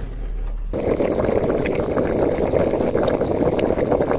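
Cartoon cooking sound effect for a pressure cooker heating over a flame: a steady rushing, bubbling noise with small crackles that sets in under a second in.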